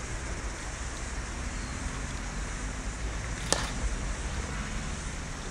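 A cricket bat strikes a ball once with a sharp crack about three and a half seconds in, over a steady outdoor background rumble with wind on the microphone.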